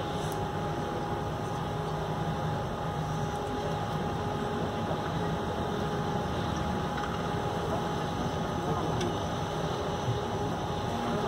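Canal tour boat's engine running steadily, heard from on board: a low hum with a steady thin tone above it.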